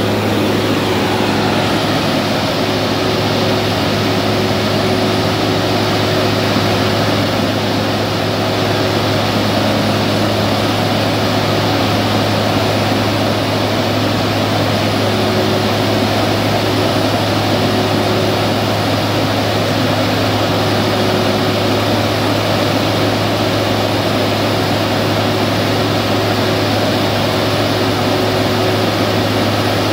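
Very large concrete floor grinder at work: its onboard diesel engine and its rotating grinding heads on wet concrete, together with the diesel of the CAT 299D track loader moving it, make one steady, loud mechanical drone.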